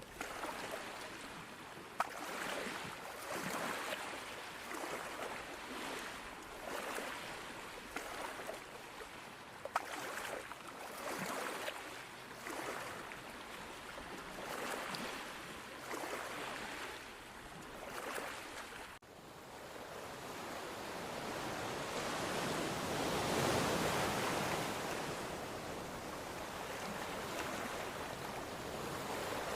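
Ocean waves washing ashore. At first small waves break every second or two, with a couple of sharp clicks. After an abrupt change about two-thirds of the way in, a steadier, fuller surf rush swells to its loudest a few seconds later and then eases.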